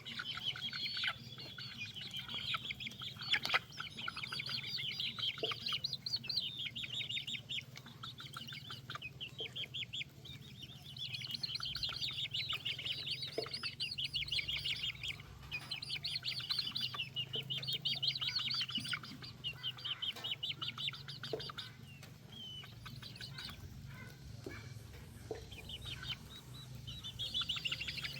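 Chicks peeping in rapid, high chirps that come in bouts, fading and returning, over a low steady hum.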